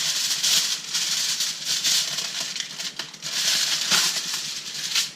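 Aluminium foil being pulled off the roll and crinkled, a crackly rustling that comes in several swells with small clicks.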